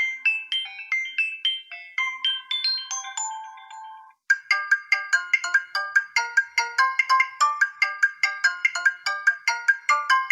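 Preset call ringtones of a Xiaomi Redmi Note 9 being played in turn. A melody of bell-like notes fades out about four seconds in, and after a short gap a different, faster ringtone of quick repeated notes starts.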